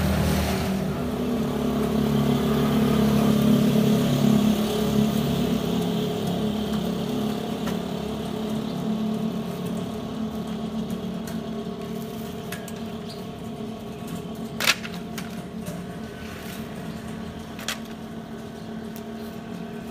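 Motor vehicle engine running close by, growing louder over the first few seconds and then fading away. There is a single sharp knock later on.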